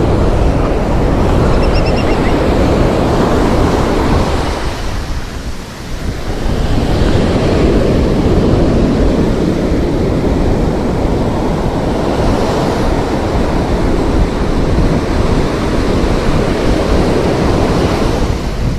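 Ocean surf washing and breaking on the beach, with wind buffeting the microphone. The noise dips briefly about five seconds in, then swells again as the next wave comes in.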